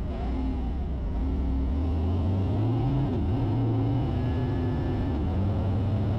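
Harley-Davidson Road King's V-twin engine running while under way; its note climbs a little and grows slightly louder about two seconds in, then holds steady.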